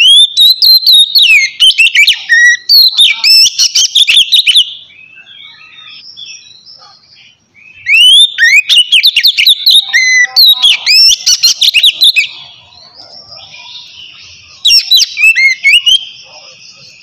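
Oriental magpie-robin singing loud, clear song: three bursts of rapid whistled notes sweeping up and down, separated by pauses filled with fainter chirps.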